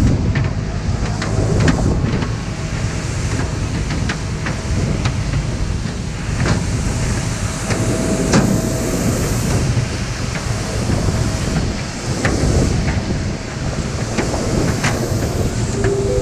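Steady low rumble of a moving vehicle's interior, with rattles and scattered clicks and knocks.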